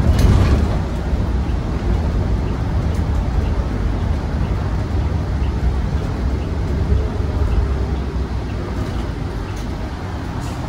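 Inside a 2020 New Flyer XN35 transit bus under way: the low rumble of its Cummins Westport L9N natural-gas engine mixed with road noise, with a brief rattle right at the start and a faint whine in the second half.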